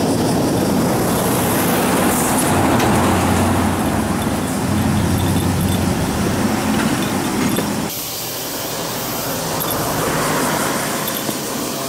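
Road traffic: vehicles passing with engine and tyre noise, while a truck approaches. The sound cuts off suddenly about eight seconds in, leaving a quieter outdoor hiss.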